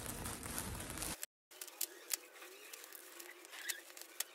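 Metallic foil gift wrap being picked at and torn open by hand, crinkling with sharp crackles and clicks. The sound cuts out completely for a moment about a second in.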